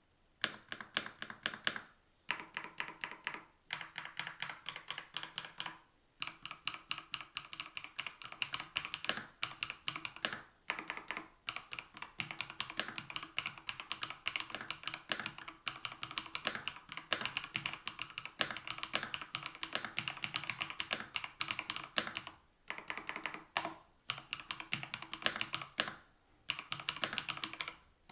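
Typing on a gasket-mounted Kzzi K75 mechanical keyboard: fast, continuous key clacks in long runs, broken by a few brief pauses.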